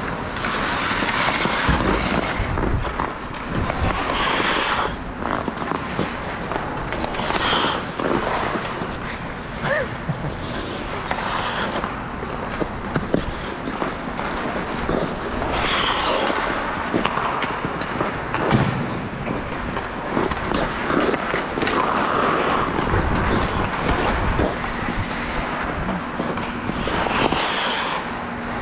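Game-play noise from a small-sided 3v3 game: continual scraping and gliding, with many short knocks and impacts. A steady low hum comes in near the end.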